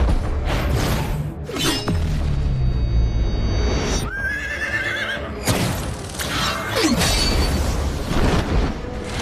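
Action-cartoon sound track: dramatic music with whooshing effects, and a cartoon robot horse's whinny, a quavering neigh lasting about a second and a half, about four seconds in.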